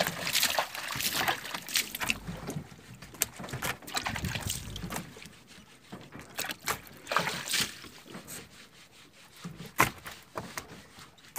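Irregular knocks, clicks and water splashes of work on a fishing boat, busiest in the first few seconds, with one sharp knock near the end.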